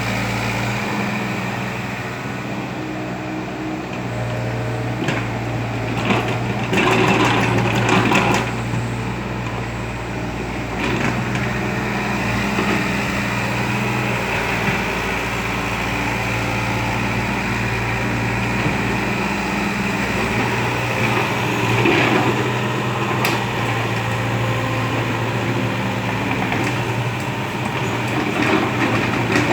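Kobelco hydraulic excavator's diesel engine running steadily, with a burst of clattering and rattling about seven seconds in and a few sharper metal knocks later on.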